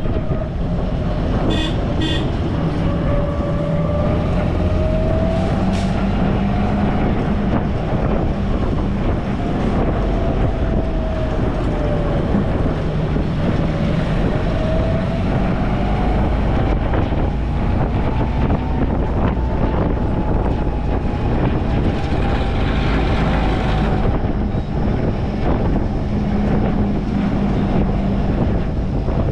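Mahindra jeep's engine running while driving in the open-top vehicle, its pitch rising and falling slowly with speed, under a steady wash of wind and road noise. Two short horn beeps sound about two seconds in.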